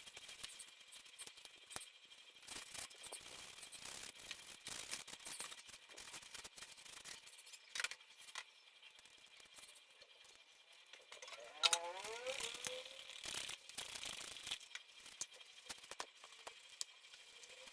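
Small clicks, taps and rattles of computer parts being handled and cleaned, with a brief rising squeak about 12 s in.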